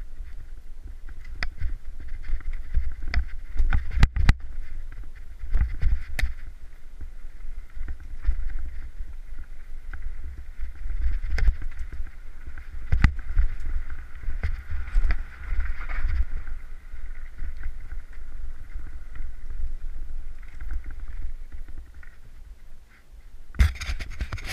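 Mountain bike descending a rough trail over roots and rocks, heard through a helmet camera: wind rumble on the microphone with many sharp knocks and rattles from the bike, and a steady hiss from the tyres and drivetrain, with a louder rush near the end.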